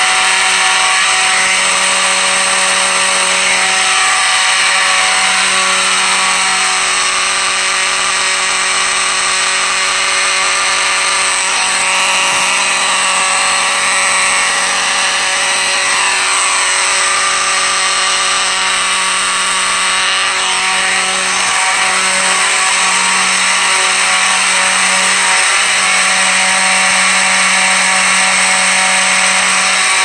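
Amseco BZ54VT electromechanical motor horn sounding continuously on fire alarm: one steady, raspy, pretty loud buzzing horn tone. The panel is in continuous alarm after a manual pull station was pulled.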